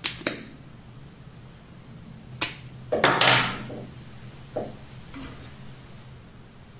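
Makeup products and tools being handled, giving several separate clicks and knocks of small hard objects, with a short clattering rattle about three seconds in that is the loudest.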